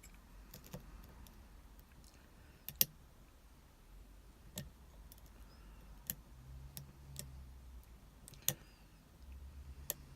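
Scattered sharp metal clicks of a lock pick and tension wrench working the pin tumblers of an Abus 72/40 padlock, with the loudest clicks about 3 seconds and 8.5 seconds in. This is the lock being picked again after a reset, with the pins being set one by one.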